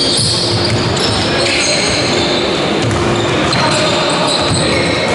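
Live basketball play in an echoing sports hall: the ball bouncing on the wooden court, trainers squeaking and players calling out.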